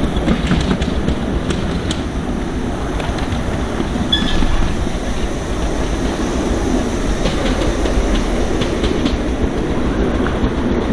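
A 10¼-inch gauge 4-4-2 miniature steam locomotive running along its track: a steady low rumble with faint clicking from the wheels on the rails.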